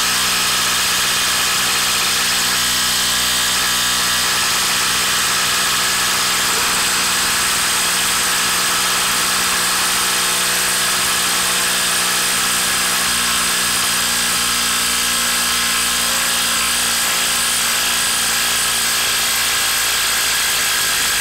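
DeWalt DCF890 cordless impact wrench hammering without a break in reverse, backing a 6-inch lag bolt out of wood under heavy load. The hammering holds at a steady level and pitch throughout.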